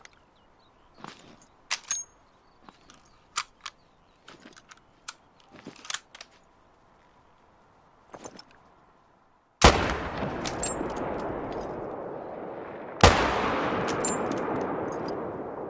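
Mosin-Nagant bolt-action rifle: a series of sharp metallic clicks and clacks, some with a brief ring. About ten seconds in comes a loud shot, and a second one about three and a half seconds later; each leaves a long fading echo.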